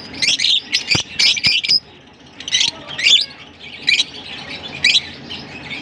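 A flock of caged lovebirds giving sharp, high, squeaky chirps: a quick run of calls in the first couple of seconds, then single chirps about once a second. Two soft knocks come about a second in.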